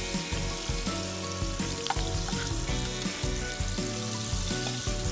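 Batter-coated lotus root slices deep-frying in hot vegetable oil in a pan, the oil sizzling and bubbling steadily, with a single click about two seconds in.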